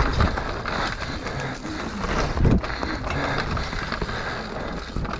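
Mountain bike descending a dirt forest trail at speed: the tyres rolling over dirt and roots and the bike rattling over bumps, with a heavier thud about two and a half seconds in.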